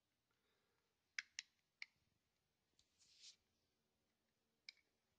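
Faint small plastic clicks from the battery cover of an Elephone Explorer Pro action camera being worked open: three quick clicks about a second in, a brief scrape around three seconds, and one more click near the end.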